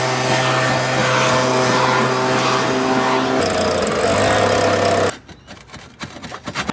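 A small engine-driven machine running steadily with a loud hiss. Its pitch shifts about three and a half seconds in, and it cuts off abruptly about five seconds in, followed by a few light knocks and scrapes.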